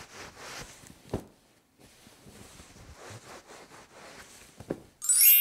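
Towel rubbing over skin while drying off: a soft, repeated rustling with a short pause after about a second and a couple of sharp knocks. Near the end a loud, bright ding rings out and starts to fade.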